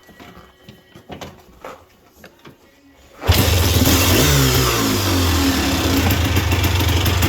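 A 1986 Honda ATC250R's 250cc two-stroke engine fires up about three seconds in after a few faint knocks, revs briefly and settles into steady running.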